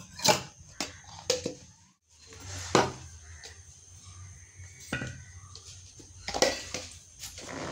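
Stainless-steel kitchen containers being handled: a few separate clinks and knocks as a steel tiffin box is closed. After a short break, more knocks as a steel water bottle is set into a fabric lunch bag.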